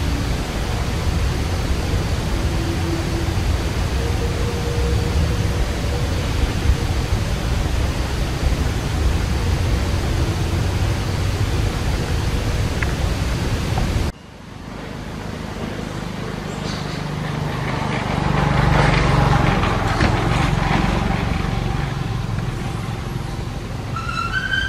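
Steady outdoor background noise, a low rumble with hiss. It cuts off abruptly about halfway through, and a different rumble builds, loudest a few seconds later, then eases off. A few short rising chirps come near the end.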